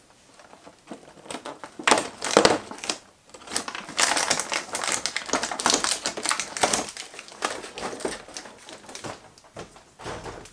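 Cardboard door of an advent calendar being pried and torn open, with crinkling of the packaging inside, in irregular rustling, scraping bursts and clicks.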